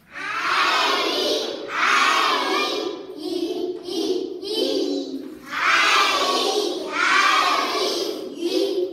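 A group of young children voicing English letter sounds together in unison as a phonics chant, in repeated loud phrases about a second long with short gaps.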